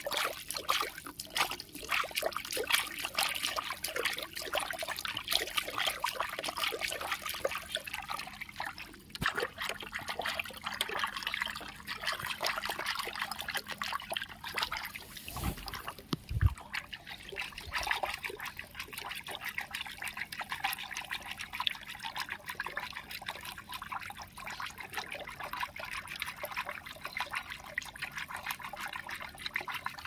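Water trickling and splashing steadily, like a small stream, with two short low thumps about halfway through.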